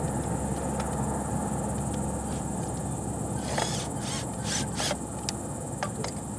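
Crickets chirring steadily. Around the middle come about four short rasping bursts, half a second apart, as a cordless drill-driver works a bolt on the scooter's engine casing.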